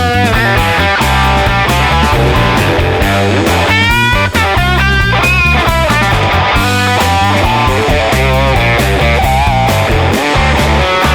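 Rock music with electric guitar playing a melodic lead over bass and drums.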